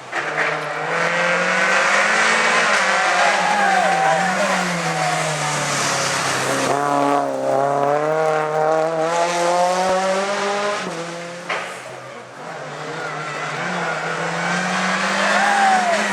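Rally car engine revved hard, its pitch climbing and dropping repeatedly through gear changes and lifts. It cuts off sharply about eleven seconds in, then builds again toward the end.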